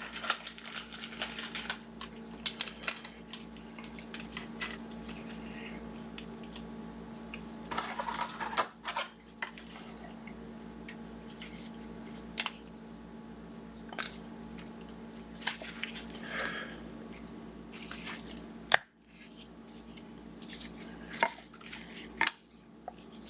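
Trading cards and packs being handled: rustling, sliding and light clicks and taps scattered throughout, over a steady low hum.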